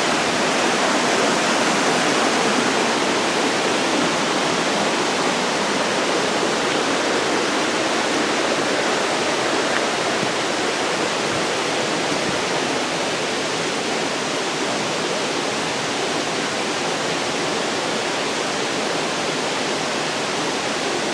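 Crabtree Falls waterfall: a steady, unbroken rush of falling water.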